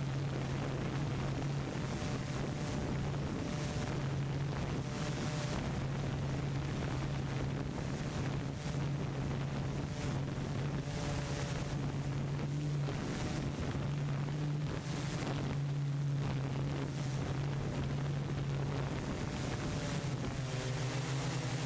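Wind buffeting the microphone in uneven gusts, over a steady low hum.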